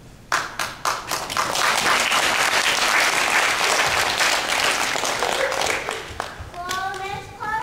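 Audience applauding, starting with a few sharp claps, swelling to a full steady round of clapping and dying away near the end.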